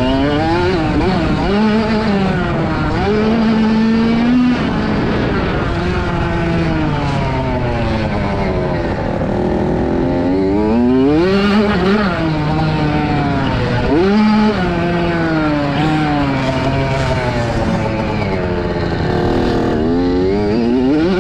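Motocross bike engines, among them a Kawasaki KX65 two-stroke, revving up and down around the track: the pitch climbs and drops every couple of seconds with throttle and gear changes, with more than one engine overlapping at times.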